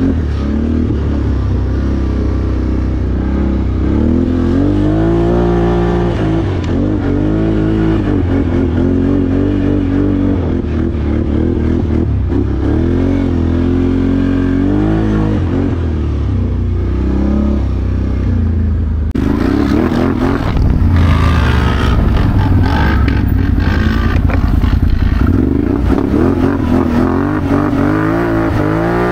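Quad-bike (ATV) engine under way, its pitch rising and falling again and again as the throttle is opened and eased off. About two-thirds of the way through, a louder rushing hiss joins the engine.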